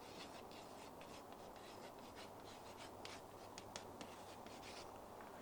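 Hand-writing on a board: a run of short, faint strokes as the words are written out, over a low steady hum.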